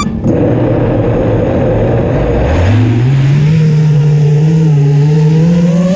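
FPV racing quadcopter's electric motors spinning up: over a steady noise, a hum rises in pitch about two and a half seconds in, then holds steady, creeping slightly higher near the end.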